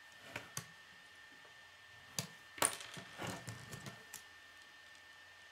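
Plastic K'nex pieces clicking and clattering as they are handled and snapped together: two clicks near the start, then a burst of clicks and rattling in the middle, the loudest about two and a half seconds in.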